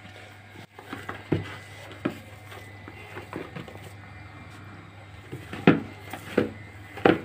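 Bread dough being mixed and kneaded by hand in a plastic bowl: irregular soft thumps and squishes as the dough is pressed against the bowl, the loudest near the end, over a faint steady low hum.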